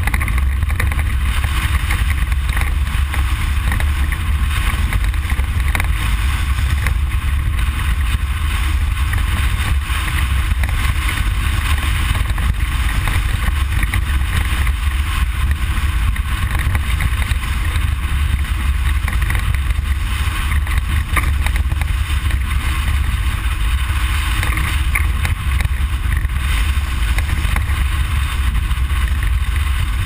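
Ford Explorer prerunner at speed over a desert dirt road, heard from inside the cab: steady engine drone over a deep, unbroken rumble and a dense hiss of tyre and road noise.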